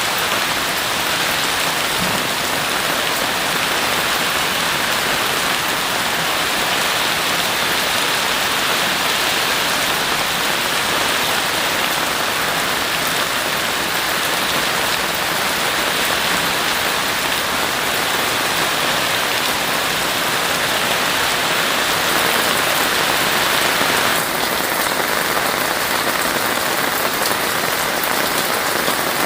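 Heavy rain falling steadily, a dense, even hiss with no thunder; its tone shifts abruptly near the end.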